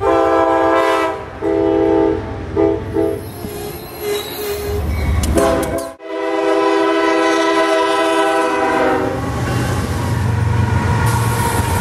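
Locomotive air horn sounding a series of long and short blasts as the train approaches. The sound cuts off abruptly about halfway through, then another long horn blast is followed by the low rumble and wheel noise of a train passing close by.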